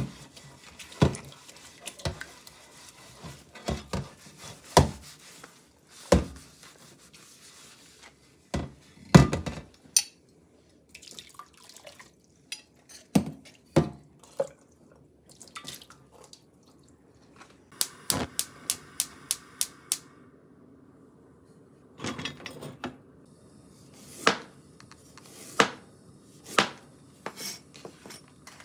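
A cast-iron omelet pan being scrubbed with a sponge and rinsed in a stainless steel sink, with scattered clinks and knocks of the pan and splashing water. Partway through comes a quick, even run of about seven clicks. Near the end there are knife strokes slicing ginger on a cutting board.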